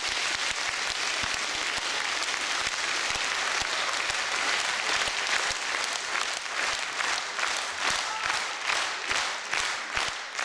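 Concert audience applauding after a song ends; about halfway through, the clapping falls into a steady rhythmic beat in unison, about two to three claps a second.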